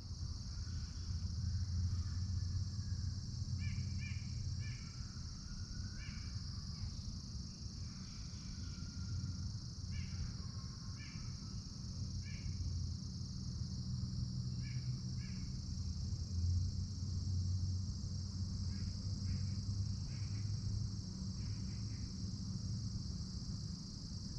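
Morning woodland ambience: a steady high drone of insects, with birds calling in short series of three or four harsh notes every few seconds, over a steady low rumble.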